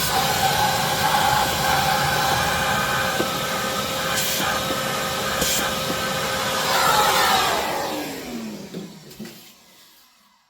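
Vacuum cleaner running steadily as it sucks debris out of a car's cabin air filter housing. It is switched off about eight seconds in, and the motor's whine falls in pitch as it spins down.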